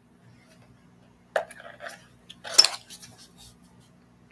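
Items being handled on a table: a sharp knock about a second and a half in, then a louder brief clatter a second later, with small clicks between, over a faint steady electrical hum.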